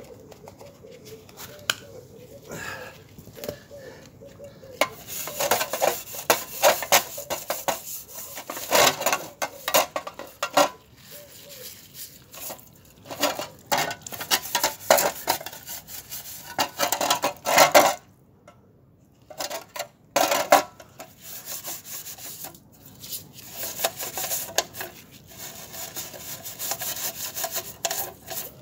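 Hand scrubbing of a sheet-steel fuel tank stripped of its paint, in quick back-and-forth rasping strokes. The strokes start about five seconds in, come in runs, and stop briefly about two-thirds of the way through.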